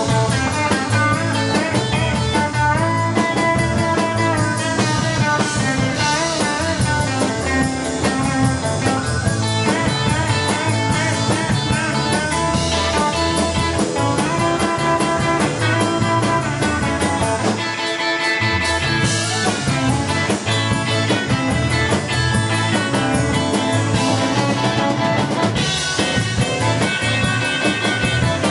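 Live rock and roll band playing an uptempo number: two electric guitars, electric bass and drum kit, loud and steady throughout.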